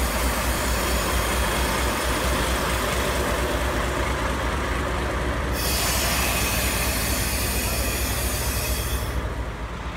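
JNR Class DE10 diesel locomotive engine running at a standstill, a steady low rumble heard up close alongside its engine hood. A loud hiss surges about five and a half seconds in and stops about nine seconds in.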